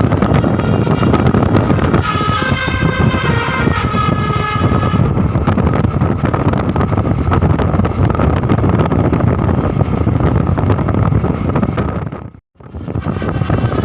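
A bus's telolet musical horn plays a few seconds of its multi-tone toots about two seconds in, over loud low road and engine noise from the bus. The sound drops out for a moment near the end.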